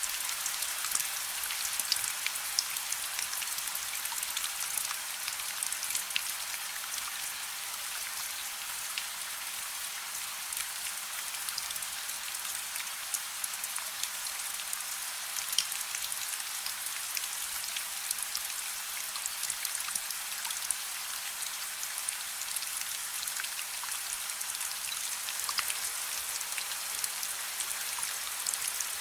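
Steady rain, an even hiss, with scattered sharp crackles and pops from a wood fire in a fireplace.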